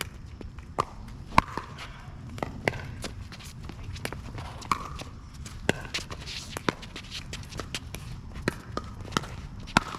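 Pickleball rally: paddles striking the plastic ball in sharp pops roughly once a second, the loudest about a second and a half in, with players' footsteps on the hard court between hits.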